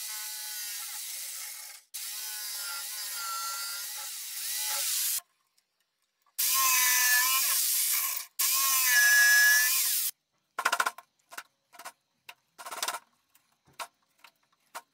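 A jigsaw runs in several spells as it cuts a slot into the end of a wooden dowel rod, its pitch wavering as the blade cuts, with short breaks between the spells. From about two-thirds of the way in, this gives way to a string of short scraping strokes as a thin hand tool clears out the slot.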